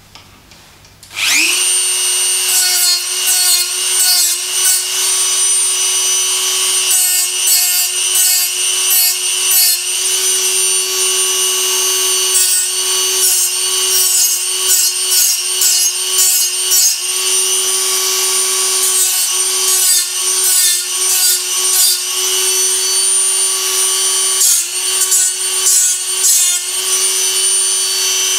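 Handheld rotary tool spinning up with a quick rising whine about a second in, then running at a steady high speed. Its abrasive wheel grinds against the steel lathe frame in short, irregular bouts, throwing sparks.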